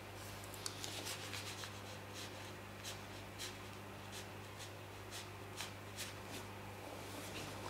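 Ink brush working on paper: soft scratchy rubs and light irregular ticks as short strokes are laid down, over a steady low hum.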